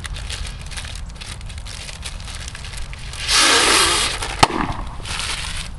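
Paper napkin crinkling as it is unfolded, then a loud nose-blow into it about three seconds in, lasting about a second. A sharp click follows just after, then a shorter, softer rush of breath.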